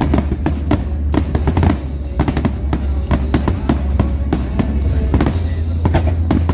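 Aerial firework shells bursting in rapid succession, several sharp bangs a second, with music playing underneath.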